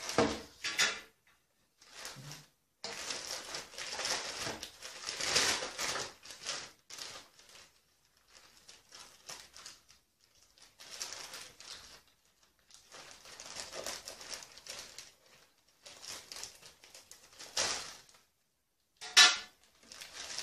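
Plastic courier mailer bag crinkling and rustling as it is handled and cut open with scissors, in irregular bursts with short pauses, with one sharp loud crackle near the end.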